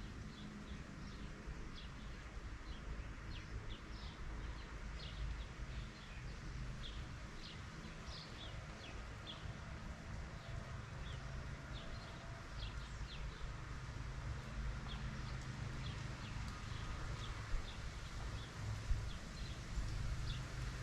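Small birds chirping in short, scattered calls over a steady low rumble of outdoor background noise, with two brief knocks near the end.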